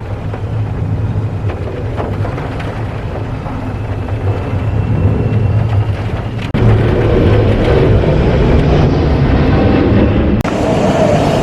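Strong wind whipping through and around a car door, buffeting the microphone with a loud, low rumbling noise that jumps louder about six and a half seconds in.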